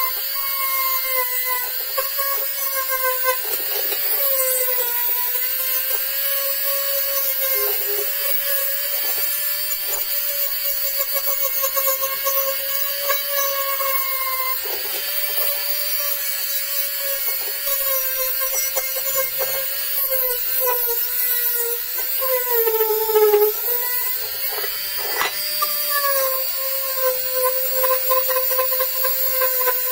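Handheld rotary tool spinning a small round bit against a copper bowl to clean off dark oxide: a steady high motor whine whose pitch wavers and sags as the bit is pressed into the metal, dipping lowest about three quarters of the way through.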